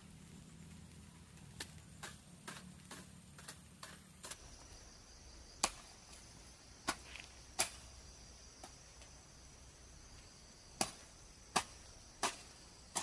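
Sharp knocks of a hand tool striking bamboo or wood. There are quick, light strikes for the first few seconds, then louder single blows about a second apart, over a steady high insect chirr.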